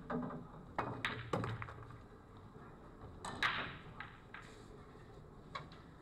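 Pool shot: the cue tip strikes the cue ball, followed by sharp clicks of balls colliding in the cluster and a louder knock a couple of seconds later.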